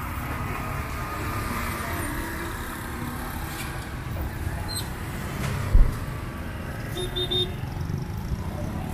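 Steady road-traffic rumble from a busy street, with a single dull thump about six seconds in.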